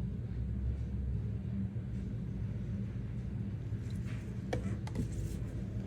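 Steady low hum, with a few light clicks and taps about four to five seconds in.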